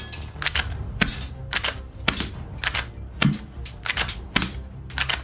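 Plastic toy guns clattering and clacking against one another as hands dig through a box full of them: irregular sharp clacks, a few louder knocks about once a second.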